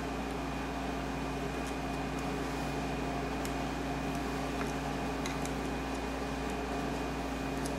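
Steady machine hum with a faint high whine, over which an Allen key makes a few faint metallic ticks as it works the screws on a mini lathe's change-gear bracket.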